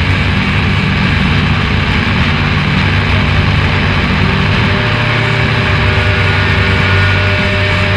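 A loud, dense, steady low rumbling drone, engine-like, with a few thin steady tones coming in above it about halfway through.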